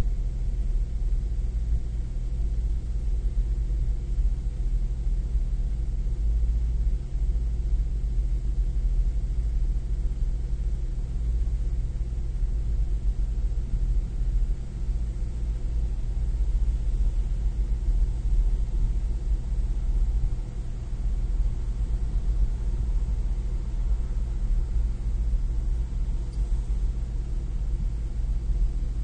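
Nissan Maxima's 3.5-litre V6 idling steadily, with the slight misfire at idle that the owner is testing for.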